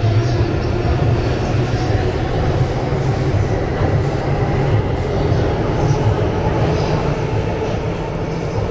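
JR electric commuter train running along the platform, a steady loud rumble of wheels on rail with no let-up.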